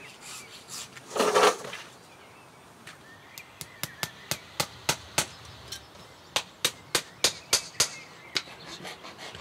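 Farrier's hammer tapping horseshoe nails into a horse's hoof: a series of light, sharp taps, about three a second, from about three and a half seconds in to about eight seconds. A short noisy burst, the loudest sound, comes about a second in.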